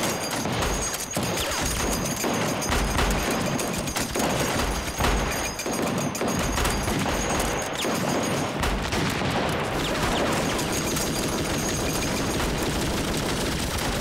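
Battle gunfire: many rifles and a machine gun firing together in a dense, unbroken fusillade of overlapping shots.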